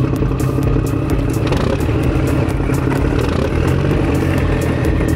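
A vehicle's motor running steadily, a low hum with a light rattling clatter of short, even clicks over it.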